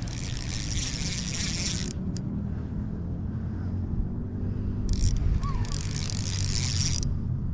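Fishing reel whirring in two spells of about two seconds each while a big trout is played, over a steady low rumble.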